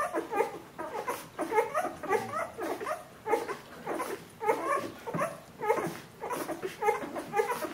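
A litter of two-week-old Bernese Mountain Dog puppies nursing, making a constant chorus of short, overlapping squeaks and whimpers, several a second.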